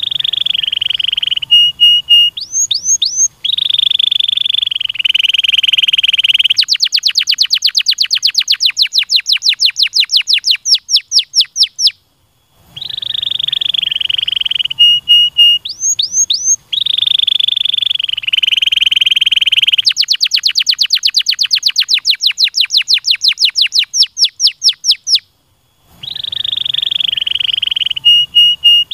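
Domestic canary singing loudly: long song phrases of held buzzy rolls, short rising whistles and a long fast trill of about eight to nine notes a second. The same phrase repeats twice, with a brief pause before each repeat.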